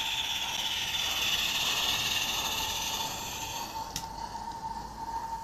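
Märklin BR 89 gas-fired live-steam model locomotive running past, its burner and steam making a steady hiss with a steady high tone under it. The hiss drops away sharply just before four seconds in, with a single click.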